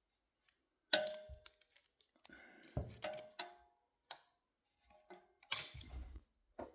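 Safety wire pliers and steel safety wire handled and clipped: a series of separate sharp metallic clicks and clinks, some with a short ring, the loudest a bit past the halfway point.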